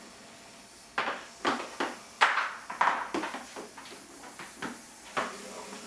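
Handling noise from a plastic shipping tote: a run of short knocks, crinkles and rustles from packing paper and hard plastic as a small plastic snake container is dug out and lifted. It starts about a second in.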